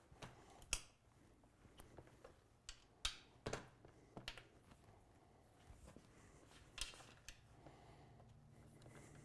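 Mostly quiet, with several light, separate clicks and clinks of metal suspension parts being handled as a cross shaft is fitted between snowmobile suspension rails.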